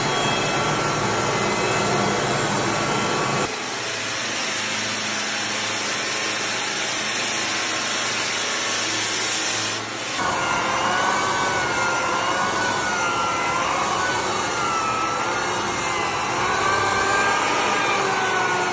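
Floor sanding machines running on a timber floor: a steady grinding rush with a motor whine, changing abruptly twice as the shots change. In the last part the motor whine wavers up and down in pitch.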